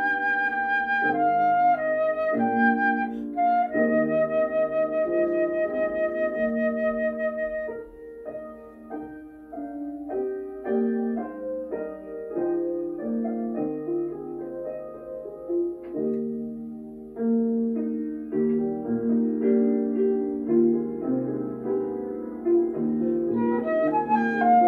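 Instrumental music: a slow melody in long held notes on a woodwind, flute-like, over piano chords. About a third of the way in the melody drops back and the music goes quieter, then the melody comes back strongly near the end.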